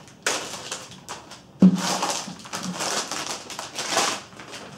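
Crinkling and rustling of a thin plastic bag as a modem router is pulled out of it, with one sharp knock about a second and a half in.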